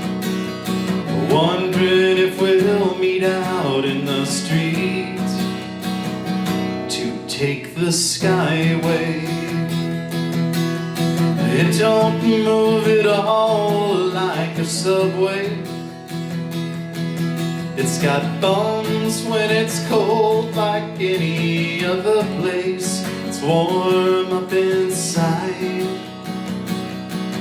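Acoustic guitar strummed steadily, with a vocal melody carried over it in phrases.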